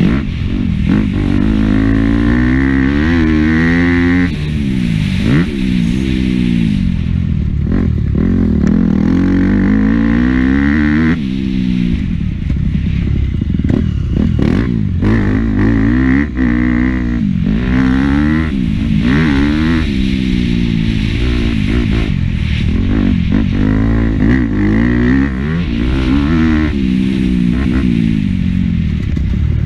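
Motocross bike engine revving hard, its pitch climbing and dropping again and again as the rider accelerates, shifts and backs off the throttle around the track, heard from the rider's onboard camera.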